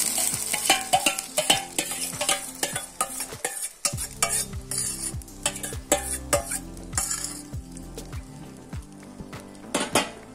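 Beaten egg mixture frying in hot coconut oil in a metal pan, sizzling on and off, while a spoon scrapes and taps against the pan many times as the egg is spread out.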